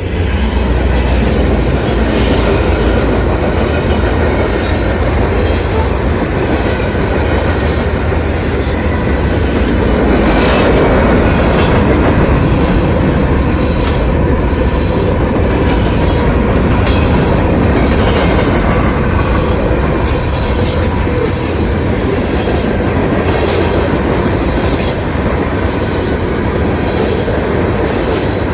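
Train passing close by: a steady, loud rumble of wheels on rails with repeated clicks, and a brief high-pitched screech about twenty seconds in.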